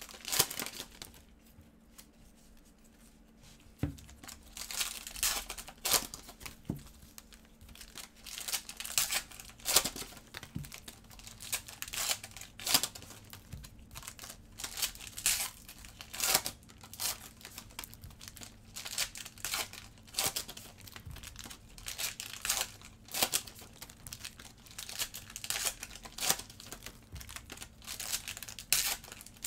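Trading-card pack wrappers crinkling and being torn open by gloved hands. There is a short lull about a second in, then steady crinkling and tearing.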